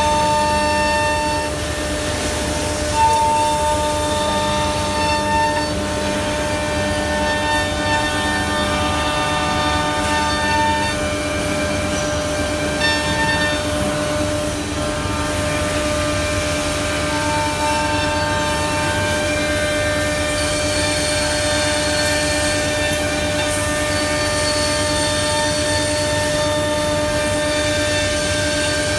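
CNC door hinge-boring and lock-mortising machine running: a steady spindle whine over a lower hum, with higher tones that switch on and off repeatedly over the first half and again later on.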